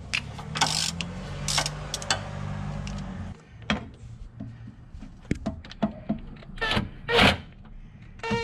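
Ratchet and socket extension working an engine-mount bolt under a Jeep XJ: a steady low hum for the first three seconds or so, then a series of metallic clicks and knocks, the loudest about seven seconds in.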